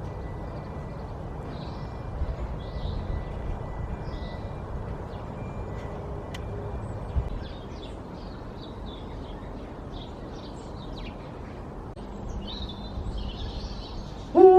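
Small birds chirping on and off over a steady low rumble. Right at the end, a loud animal call starts, sliding down in pitch.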